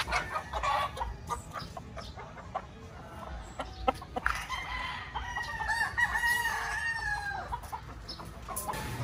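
Gamefowl roosters crowing and clucking, with one long drawn-out crow starting about four seconds in and lasting some three seconds.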